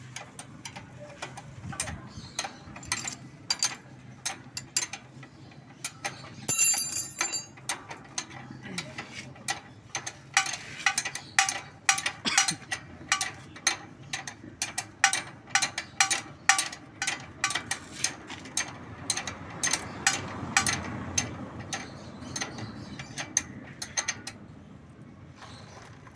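Motorcycle drive chain clicking over its 45-tooth rear sprocket as the freshly adjusted rear wheel is turned by hand: a long run of sharp, irregular mechanical clicks, a few per second.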